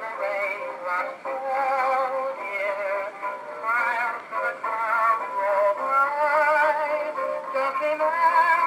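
Music from an old record played on a 1920s Columbia Grafonola phonograph. The sound is thin, with no deep bass, and a wavering melody line runs throughout.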